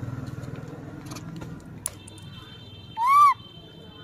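A young rhesus macaque gives one short coo call about three seconds in, rising then falling in pitch, while the low rumble of a passing motor vehicle fades away.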